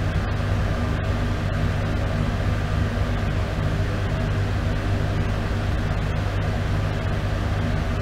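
Bathroom exhaust fan running steadily: a constant low motor hum with an even rush of air, unchanging throughout.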